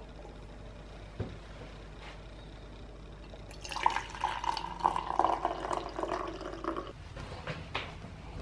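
Coffee poured from a glass carafe into an enamel metal camping mug, a steady pour lasting about three seconds. A single light knock about a second in, and a few handling clicks near the end as the mug is picked up.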